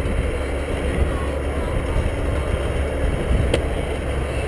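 Vehicle engine running steadily with a low drone, and one sharp click about three and a half seconds in.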